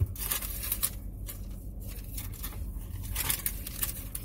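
Paper receipt rustling and crinkling as it is handled and unfolded, in several uneven strokes.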